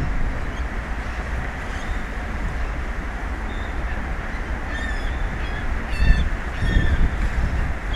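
Steady wind and sea noise on the microphone, with a few short, harsh seabird calls in the second half.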